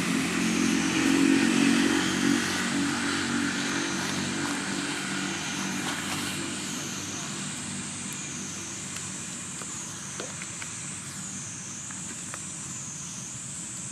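A motor vehicle's engine running close by, loudest in the first few seconds and then fading steadily as it moves away. A thin, high whine rises and falls over and over behind it.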